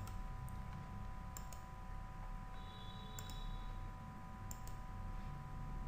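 Scattered clicks of a computer mouse, several as quick press-and-release pairs, over a steady hum.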